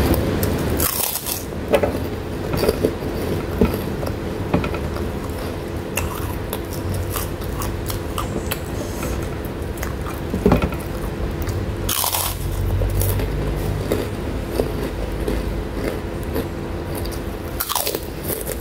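Close-miked chewing and mouth sounds of someone eating with her fingers, with scattered sharp smacks and small scrapes against the plate. A low rumble sets in about two-thirds of the way through.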